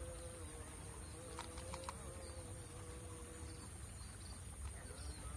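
Outdoor ambience: a steady high-pitched insect trill over a low rumble and a faint steady hum, with a few faint clicks about a second and a half in.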